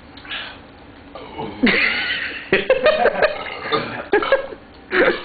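A man coughing and burping after chugging a shotgunned beer: a long voiced burp or groan about two seconds in, followed by a string of short coughs and another burst near the end.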